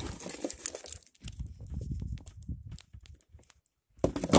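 Plastic handling noise from a removed car headlamp assembly: scattered clicks and crinkling over a low rumble, with a sharper, louder crackle near the end.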